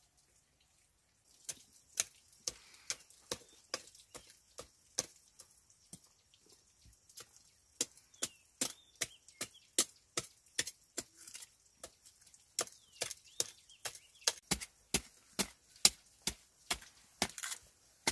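Long knife blade chopping repeatedly into hard, dry clay soil, breaking up clods with sharp strikes about three a second, starting about a second in.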